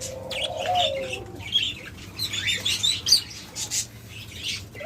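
Caged budgerigars chirping and chattering, with a low cooing call from a dove during the first second or so.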